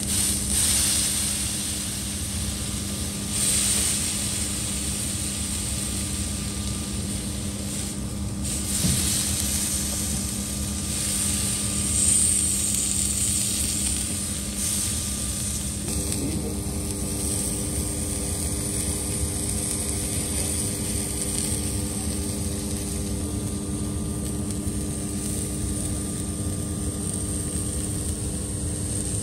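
Steak sizzling on a hot flat-top griddle as its edges are seared, under a steady mechanical drone with a constant hum; more hum tones join about halfway through.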